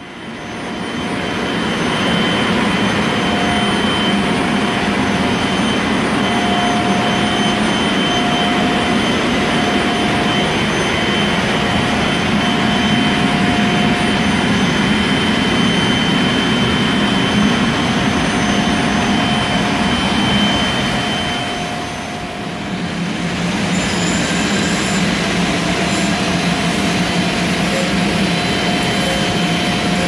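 Ruwac FA2000 explosion-proof silo central vacuum system running: a loud, steady rush of air with thin, steady high whistling tones. The level dips briefly about two-thirds of the way through, then comes back steady.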